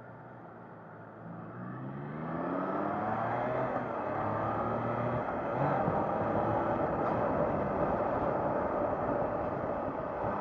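Triumph Trident 660's three-cylinder engine revving up as the bike accelerates away, its pitch climbing from about a second in, with a break at a gear change around five seconds in. Wind and road noise build as the speed rises.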